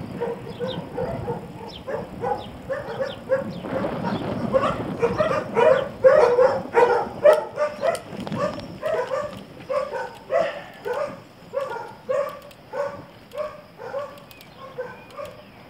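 A dog barking over and over, about two barks a second, loudest around the middle and growing weaker toward the end.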